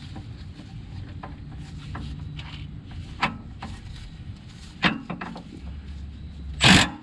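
Hand tools clicking and knocking on a rack-and-pinion mounting bolt under a car as it is loosened, a few separate sharp clicks over a low steady background, with a short loud noisy burst near the end.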